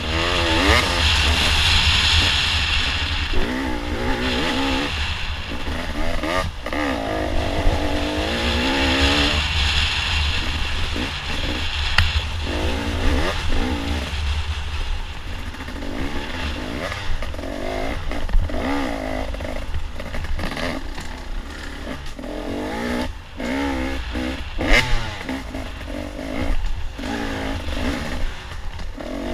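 Dirt bike engine revving up and down with the throttle, its pitch rising and falling continuously, under a heavy low rumble of wind on a helmet-mounted microphone. A few sharp knocks come through, about a quarter, two fifths and four fifths of the way in.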